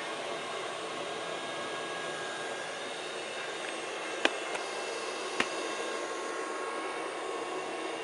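Miele Scout RX3 robot vacuum cleaner running on carpet: a steady whirring of suction fan and brushes, with two sharp knocks a little over a second apart midway.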